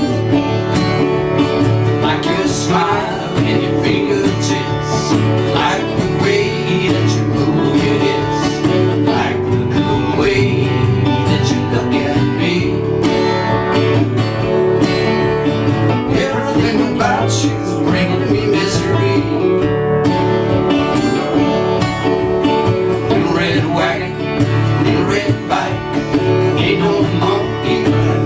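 Acoustic guitar music, plucked strings playing steadily in a folk song.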